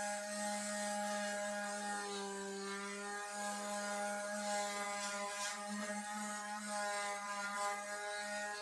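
Electric orbital sander running steadily against a wooden drawer front, a constant motor hum with a faint whine that shifts a little in pitch as it is pressed into the wood.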